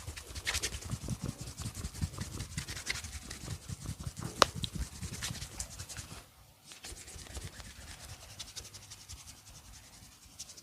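Hands rubbing and patting during a massage: a quick run of rubs and soft thumps that grows fainter after about six seconds. There is one sharp crack or click about four seconds in.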